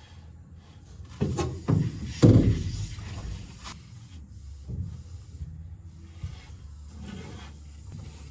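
Leftover grain being scraped and pushed into buckets, with three hollow knocks with a ringing tail between about one and two and a half seconds in, then quieter scraping.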